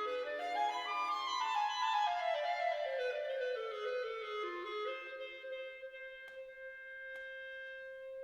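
Instrumental background music: a single melody line climbs quickly in the first second, steps down over the next few seconds, then holds one long note from about five seconds in.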